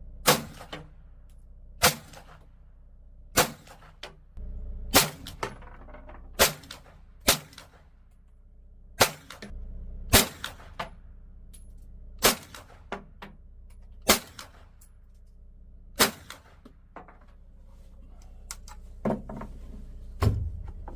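Henry Homesteader 9mm pistol-caliber carbine firing about a dozen single shots, one every one to two seconds at an uneven pace, each a sharp crack. Fainter clicks and knocks fall between the last few shots.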